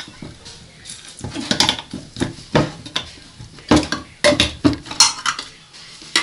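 Kitchenware clattering: utensils and dishes knocking and clinking in a dozen or so irregular knocks as canned zucchini is opened and handled.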